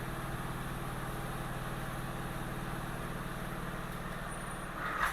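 Steady low mechanical drone with a fine, rapid pulsing, like a running motor. A short, louder sound comes near the end.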